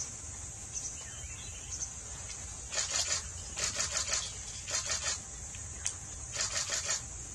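A steady high-pitched insect drone, broken by four short bursts of rapid rattling pulses about three, four, five and six and a half seconds in.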